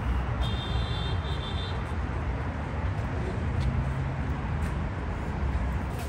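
Steady low rumble of outdoor traffic and parking-lot ambience. A brief thin high tone sounds for about a second shortly after the start.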